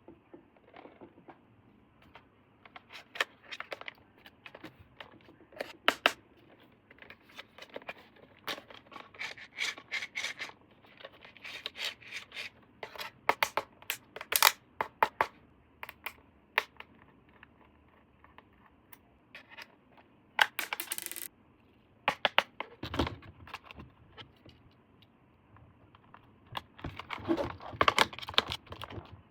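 Hands handling plastic toy parts and packaging: irregular light clicks, taps and scrapes, with a brief ripping noise about 20 seconds in and a dull knock a couple of seconds later.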